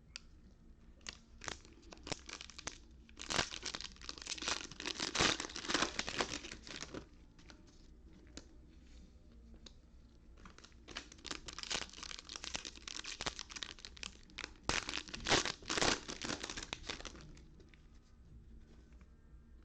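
Trading-card pack wrappers being torn open and crinkled by hand, in two long bouts of tearing and crackling with a pause between.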